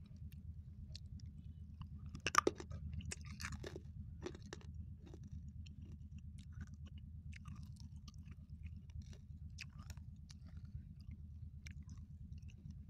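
Chewing a coffee candy, with a run of sharp crunches about two seconds in that are the loudest sounds, then softer scattered mouth clicks as the chewing goes on over a steady low hum.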